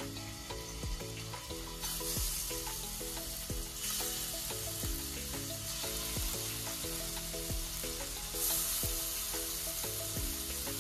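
Marinated chicken pieces sizzling as they pan-fry in hot oil in a non-stick kadai. The sizzle grows louder about two, four and eight seconds in as more pieces are added to the pan. Background music with a steady beat plays underneath.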